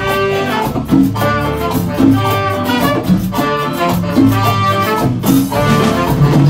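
Live band playing an instrumental passage of a Latin Christmas song: trumpet and alto saxophone carry the melody over drum kit and guitars, with a steady rhythm.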